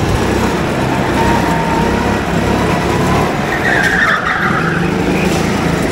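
Go-kart engine running steadily, with a brief tyre squeal about three and a half seconds in that lasts about a second.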